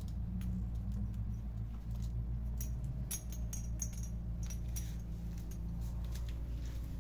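Kittens playing with a small toy on a carpet: a scatter of light clicks, taps and scratches, busiest from about two and a half to five seconds in, over a low steady hum.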